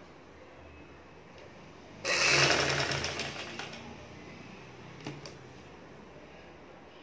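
Vidya sewing machine running a short burst of rapid stitches through fabric, starting suddenly about two seconds in and dying away over the next two seconds, followed by a couple of short clicks.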